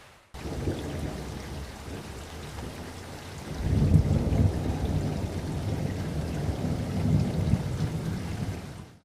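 A deep rumble over a steady hiss, swelling about three and a half seconds in.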